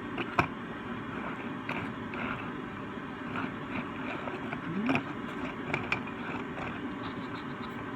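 Scattered light clicks and taps from handling small die-cast toy cars, irregularly spaced over a steady background hiss, with the sharpest click about half a second in.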